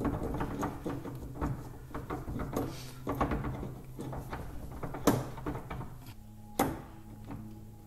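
Lathe tailstock quill assembly being pushed and turned in the tailstock bore to line its key up with the keyway: a run of metal-on-metal scraping and clicking, with two sharp knocks about five and six and a half seconds in.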